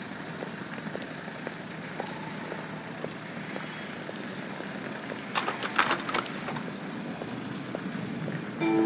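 Footsteps ticking about twice a second over a steady background hiss. A short burst of sharp clatter comes a little past halfway, and a brief pitched tone starts near the end.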